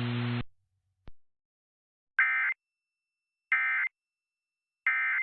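Emergency Alert System end-of-message data bursts: three short, identical two-tone digital bursts about 1.3 seconds apart, closing a flash flood warning. Before them a steady hum cuts off within the first half second, and a faint click follows.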